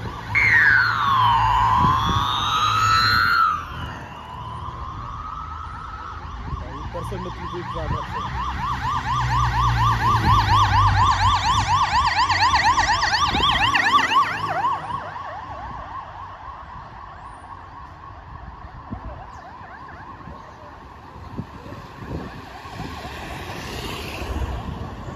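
Motorcade escort sirens passing: a loud wail sweeping down and back up in the first few seconds, then a fast yelp that grows louder as a police motorcycle approaches and passes, with its engine rumbling under it, then fades away. A faint siren comes up again near the end.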